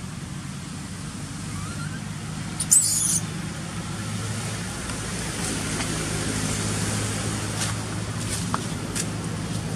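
Steady low engine hum, with one brief high-pitched squeal that wavers in pitch about three seconds in and a few faint ticks near the end.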